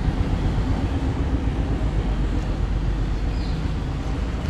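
Steady low rumble of outdoor street background noise, with no distinct events standing out.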